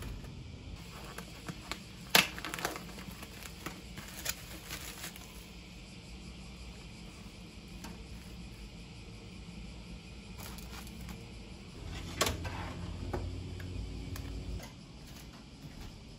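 Kitchen handling sounds at a stove's pull-out fish-grill drawer: scattered sharp clicks and knocks, the loudest about two seconds in, and another sharp knock about twelve seconds in followed by a low rumble lasting two to three seconds.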